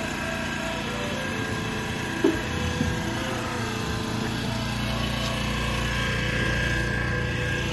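Small engine of a truck-mounted asphalt-emulsion sprayer running steadily, driving the pump while tack coat is sprayed through a hand lance. A light knock comes a little over two seconds in.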